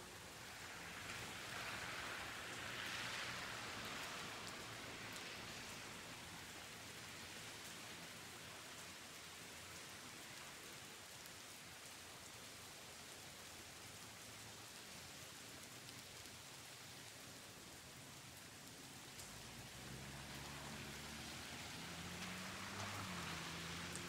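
Steady outdoor rain falling in a residential area: an even hiss of drops that swells louder twice, near the start and near the end. A faint low hum that shifts in pitch comes in over the last few seconds.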